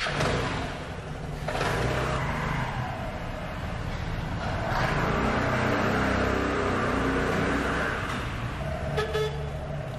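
Small motor scooter's engine running as it is ridden around a concrete parking garage. It picks up about a second and a half in, is loudest in the middle as it passes, then eases off near the end.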